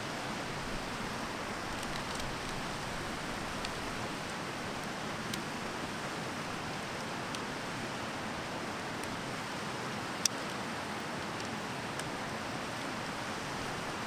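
Steady rushing of a small mountain stream running over rocks. A few light clicks sound over it, with one sharper click about ten seconds in.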